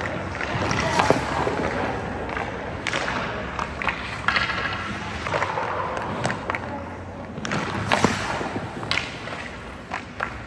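Ice hockey shooting practice: sharp knocks of a stick striking pucks and pucks hitting the goaltender's pads, with skate blades scraping the ice in a longer scrape about four seconds in.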